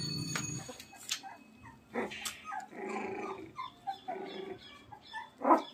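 Small puppies playing together, giving little growls and yips, with a couple of sharp, falling yelps near the end.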